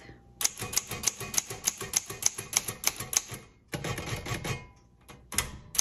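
1956 Underwood Universal portable typewriter being typed on: a quick run of typebar strikes at about five or six a second, a short pause, then more keystrokes.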